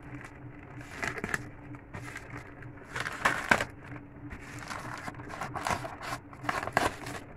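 A plastic poly mailer being cut open with scissors and handled, the plastic crinkling and rustling in irregular bursts, loudest about three seconds in and again near the end.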